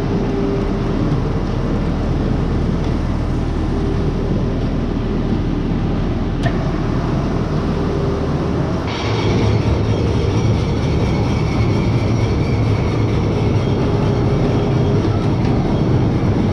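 Potato store-loading machinery (elevator, conveyors and grader) running steadily with a continuous rattle. About nine seconds in it gets louder, and a steady higher whine and a deeper hum join in.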